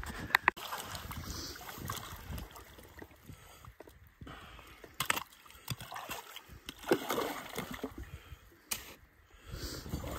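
Water splashing and sloshing, with a few sharp knocks scattered through it.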